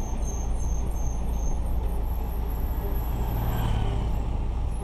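Steady low rumble of riding in a vehicle through city traffic, engine and road noise. A motorbike passes close by about three seconds in.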